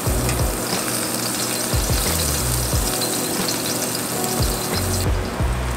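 Ogyeopsal (thick pork belly) sizzling on a coal-briquette grill, a dense crackling hiss, with a background music bass line underneath. The sizzle drops away abruptly about five seconds in.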